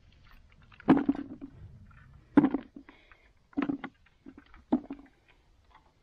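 Four short, dull knocks, spaced about a second apart, each dying away quickly.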